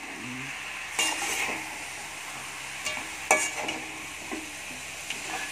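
Chicken pieces sizzling in hot oil in a metal pan while a perforated metal ladle stirs them. The ladle scrapes against the pan a few times, twice about a second in and twice about three seconds in.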